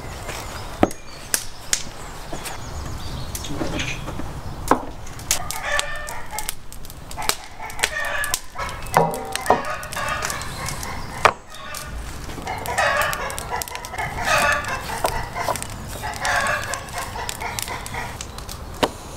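Chickens clucking and a rooster crowing in several phrases, mixed with sharp knocks and clicks from a knife and raw meat being handled on a wooden board.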